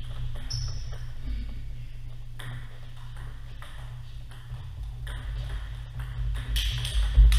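Table tennis ball clicking off bats and the table: a few sharp, spaced-out ticks, with the loudest knock near the end, over a steady low hum.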